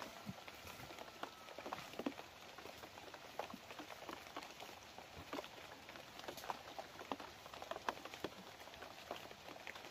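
Faint, irregular pattering and small clicks in wet forest undergrowth, several a second and uneven in strength.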